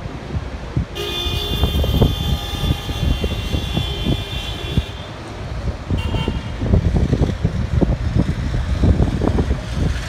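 Strong gusty wind buffeting the microphone. A steady pitched tone sounds over it from about a second in for about four seconds, and again briefly about six seconds in.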